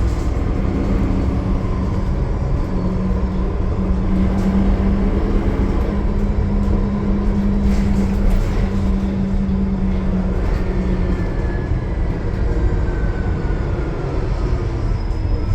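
Transit bus driving at highway speed, its Cummins ISL9 diesel engine and Voith automatic transmission giving a continuous rumble with a steady hum. The hum fades about ten seconds in, and a faint whine slowly falls in pitch after it.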